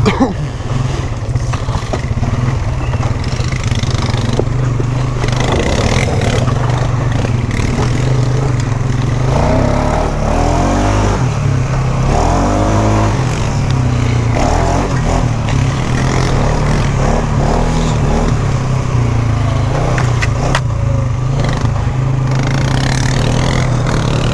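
Polaris Sportsman 570 ATV's single-cylinder engine running steadily under way, its pitch rising and falling with the throttle around the middle.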